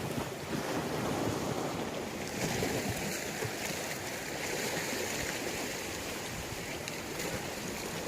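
Waves washing onto a beach, a steady hiss of surf that grows brighter from about two seconds in until near the end.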